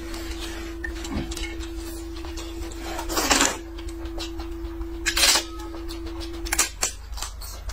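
Noodles slurped from a bowl in two loud bursts, about three seconds in and again just past five seconds, with scattered clicks of chopsticks and tableware. A steady low tone holds underneath and stops shortly before the end.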